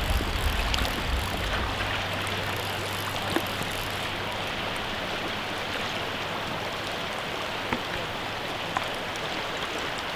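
Shallow river running over stones, a steady rush of water, with a low rumble fading out in the first couple of seconds and a few faint clicks.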